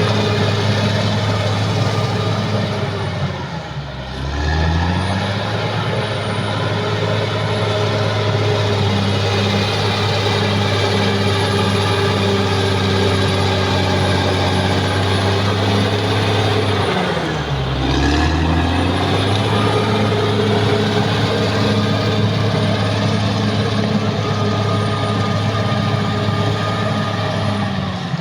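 Caterpillar D6R XL bulldozer's diesel engine running steadily at working revs. Twice, about four seconds in and again about eighteen seconds in, the engine note drops briefly and climbs back up.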